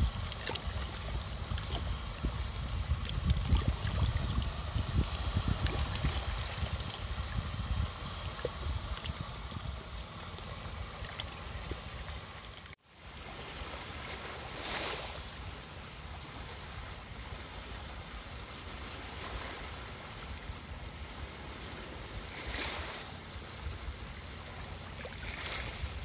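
Calm sea water lapping and washing, with a low wind rumble on the microphone in the first half. After a sudden break about halfway through, small waves wash onto a shallow shore three times: once soon after the break and twice near the end.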